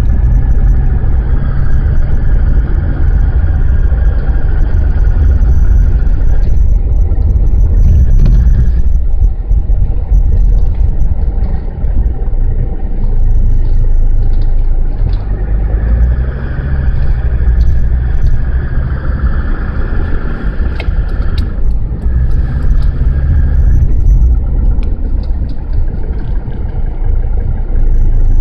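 Mercedes-Benz W123 300D driving, its five-cylinder diesel engine running with a loud rumble. The engine note rises and falls several times as it changes speed. It carries a noise that the owner puts down to the clutch.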